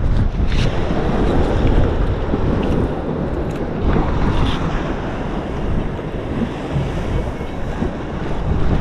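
Strong wind buffeting the microphone, a steady low rumbling noise, with a few faint clicks.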